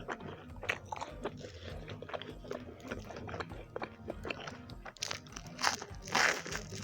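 Close-miked eating: chewing and biting with many small wet clicks, and a louder crunchy bite about six seconds in, over steady background music.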